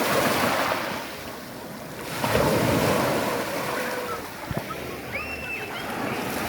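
Sea waves washing onto the shore, the surf swelling loudly twice, about a second in and again a couple of seconds later, with wind buffeting the microphone.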